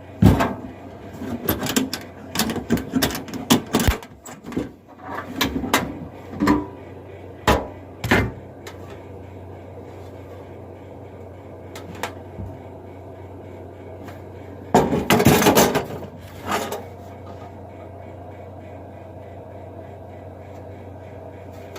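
Knocks and clanks from an old riveted metal toolbox being handled and opened. There is a quick run of knocks in the first several seconds, a few single knocks after that, and another cluster about fifteen seconds in.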